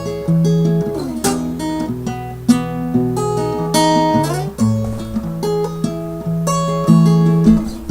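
Acoustic guitar played alone, mixing strummed chords with picked notes, with a couple of notes sliding in pitch.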